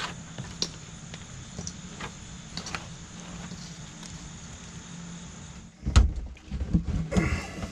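Light taps and scrapes of a plastic spreader working resin into fiberglass mat on a table, over a steady low hum; about six seconds in, a run of loud knocks and bumps.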